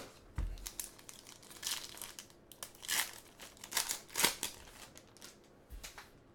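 Trading-card pack wrappers crinkling and tearing as packs are opened and handled, in short irregular rustles.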